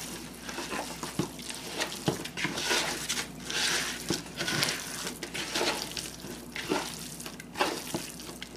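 Wet squelching and squishing of raw ground bison being kneaded by hand with egg, onion and breadcrumbs in a bowl, in irregular bursts.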